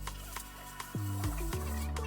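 Background music with a steady bass line and a light beat.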